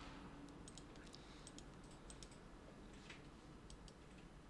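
Faint, scattered clicks of a computer keyboard and mouse over quiet room tone.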